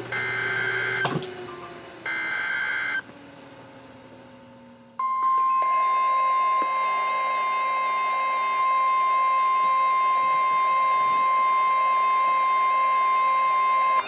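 NOAA Weather Radio emergency alert over weather alert radios. First come the last two bursts of the SAME digital header, each about a second of warbling two-pitch data tones, a second apart. About two seconds later the steady 1050 Hz warning alarm tone starts and holds, with several radios' own alert beeps layered over it. This signals an incoming severe thunderstorm warning.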